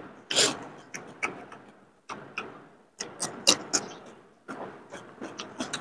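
Close-up eating sounds of biryani eaten by hand: wet chewing and lip smacks with irregular sharp clicks, a few louder than the rest.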